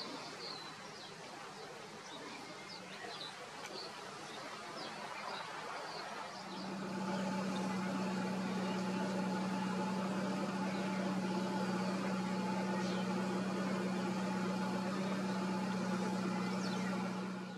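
Short bird chirps over soft outdoor background noise; about six seconds in, a steady low hum with several overtones comes in and stays level and louder.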